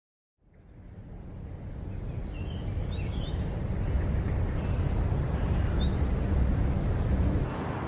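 Outdoor ambience fading in: a steady low rumble, with small birds chirping in short, rapid trills several times. The sound changes suddenly near the end.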